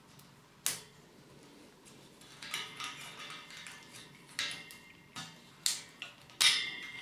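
Metal towel-radiator wall-bracket parts clicking and clinking against one another and the radiator's tube as they are slid together by hand. The sharp clicks come irregularly, some with a short metallic ring, and the loudest comes near the end.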